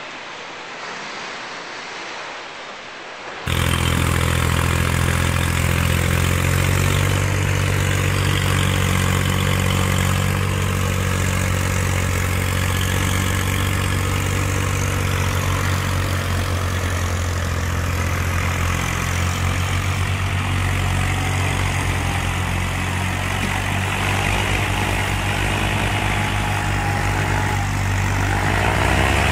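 A quieter rushing noise for the first three seconds or so, then an abrupt cut to the loud, steady running of an IMT 577 farm tractor's diesel engine working under load as it hauls a log-laden trailer through deep mud.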